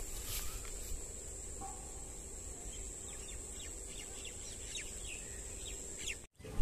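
Open-grassland ambience: a steady high-pitched insect trill, a few brief bird chirps and a low rumble underneath, cutting off suddenly just before the end.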